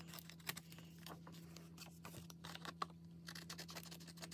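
Craft scissors snipping through paper strips glued onto card stock, a quick run of small faint snips and paper rustles, over a low steady hum.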